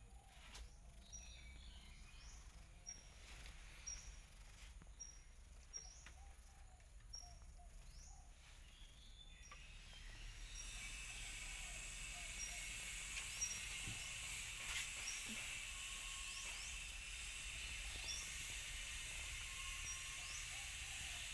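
Faint outdoor ambience: short high peeps repeating about once or twice a second, with a steady high hiss that comes up about halfway through and holds.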